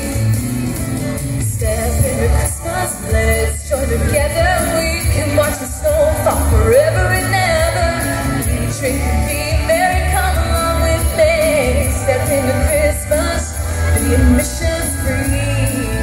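A female vocalist sings live through a handheld microphone and stage PA speakers over pop backing music with a heavy, steady bass beat.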